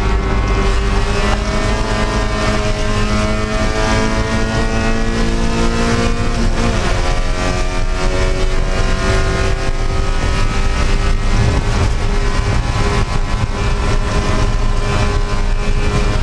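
Spec Miata's four-cylinder engine at full throttle, heard from inside the stripped cockpit over loud road and wind noise. Its pitch climbs steadily, drops sharply about six and a half seconds in at an upshift, then climbs again.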